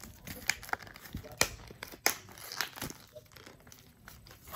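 Clear rigid plastic packaging crackling and clicking as it is handled and turned over in the hands. The crackles are irregular, with the sharpest clicks about a second and a half and two seconds in.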